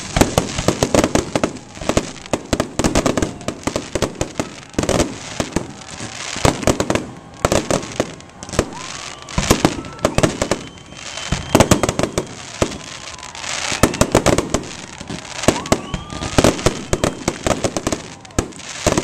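Fireworks display: a rapid, nearly continuous run of bangs and crackling as aerial shells burst overhead, several a second with no real pause.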